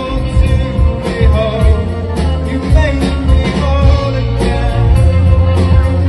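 A rock song with a singer's voice over a steady beat.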